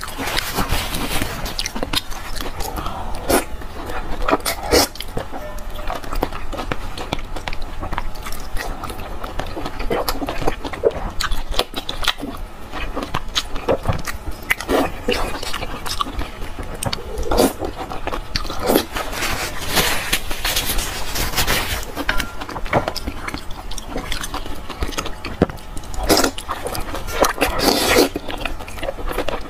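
Close-miked biting and chewing of soft braised pork intestinal fat (jiguanyou) taken from chili-oil broth. Wet mouth sounds and sharp smacks come at irregular intervals throughout.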